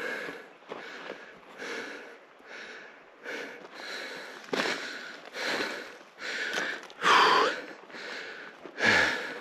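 A man breathing hard, panting from the effort of climbing a steep hillside, with breaths coming a little under a second apart and the heaviest about seven and nine seconds in.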